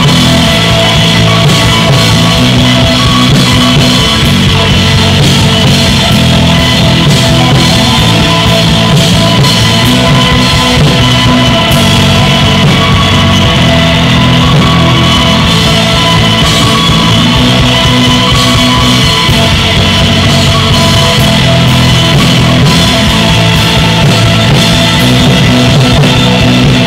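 Post-rock band playing loudly: a drum kit with a steady wash of cymbals under sustained electric guitar and bass chords that change every couple of seconds.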